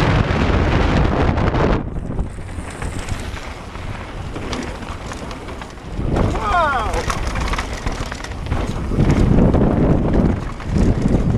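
Wind rushing over a helmet-mounted camera and tyres rolling over a loose gravel trail as a Canyon Sender downhill mountain bike descends at speed. The noise swells and fades with speed, and there is a brief rising pitched sound about six and a half seconds in.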